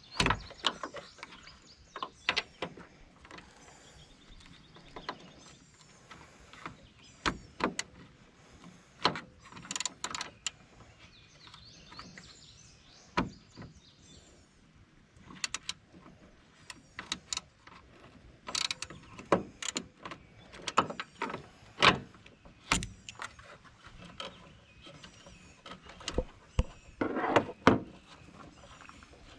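Irregular clicks and metal clanks of a socket wrench and loose hardware as the bolts of an old Jeep JK hood latch are worked loose.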